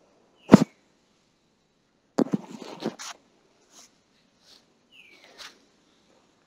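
Body movement on a yoga mat: one sharp thud about half a second in as the hands come down beside the head, then a short cluster of knocks and rustles about two seconds in as the body shifts and pushes up into wheel pose, followed by a few faint taps.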